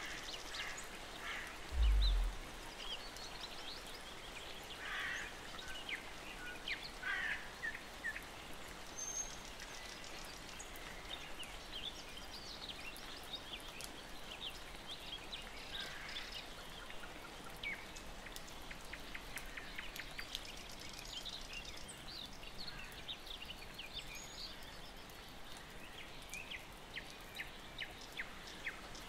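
Forest ambience: scattered short bird calls and chirps over a faint steady hiss, with one dull low thump about two seconds in.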